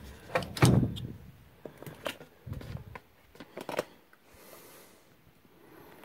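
Plastic drain pump housing of a front-loading washer being handled and shifted on its metal base frame: a few clicks and knocks, the loudest in the first second, then lighter clicks and a dull thump about two and a half seconds in.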